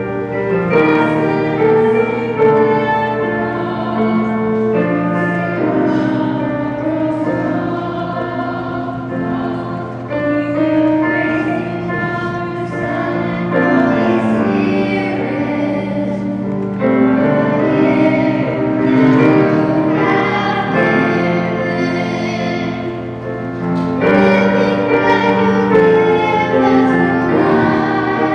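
Children's choir singing, mostly on long held notes.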